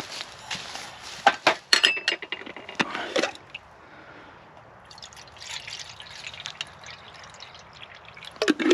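Water being swilled around and poured into a small camping kettle: clinks, sloshes and drips. They are busiest in the first three seconds, then lighter after a short pause.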